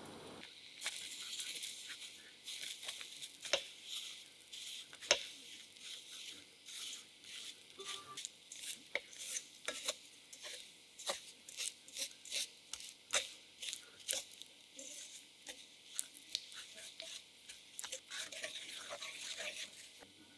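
Wooden spoon stirring and scraping melting sugar around a stainless steel pan: a gritty scrape with many sharp clicks and knocks of the spoon, starting about a second in. The dry sugar is melting and liquefying into caramel.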